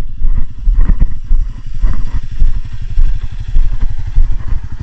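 Quad ATV's engine idling with a fast, even low putter, with a few knocks and footsteps on gravel close by.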